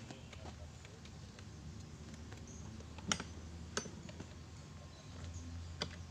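Faint taps and clicks of hard plastic as the tank cap of a new chainsaw is handled and screwed shut after filling, with three sharper clicks in the second half, over a low steady hum.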